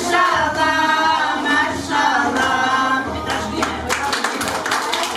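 A group of voices singing, with steady rhythmic hand clapping coming in about three and a half seconds in.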